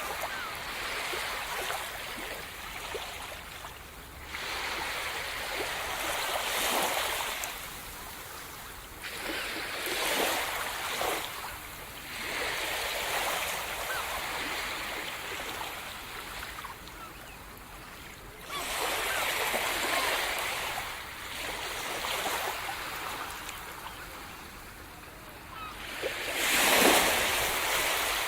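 Sea surf: waves breaking and washing up the shore, swelling and falling back every few seconds. The loudest wave breaks near the end.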